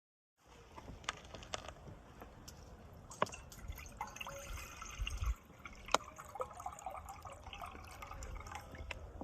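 Wood campfire crackling, with irregular sharp pops and snaps over a low hiss, starting abruptly about half a second in.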